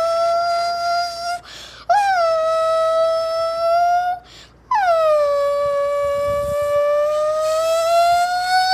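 A homemade sound effect: a high, buzzy, nasal tone held as three long notes with short breaks between them. Each note opens with a quick bend in pitch, and the last one slowly rises.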